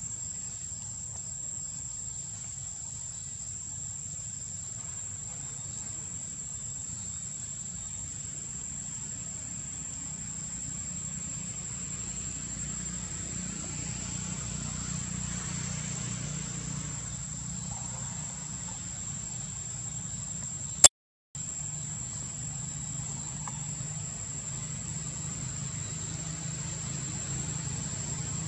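Insects droning on one steady high-pitched tone over a low steady rumble. About two-thirds of the way through, a sharp click and a brief moment of total silence break in.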